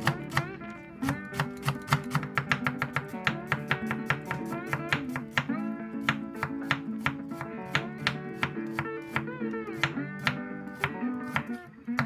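Background acoustic guitar music in a flamenco style, with fast, rhythmic plucking and strumming.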